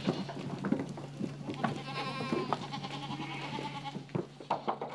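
Goats bleating, with one long wavering bleat starting a little after a second and a half in. Short knocks and clatter from hooves run through it as the goats crowd and jump through a stable doorway, over a steady low hum.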